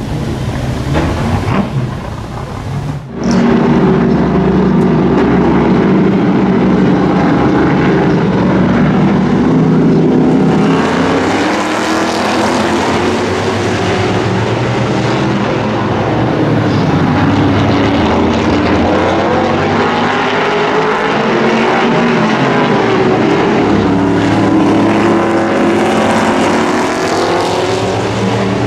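V8 race car engines running at speed on an oval track, several cars, their pitch rising and falling as they lap. A sudden break about three seconds in, after which the engines are louder.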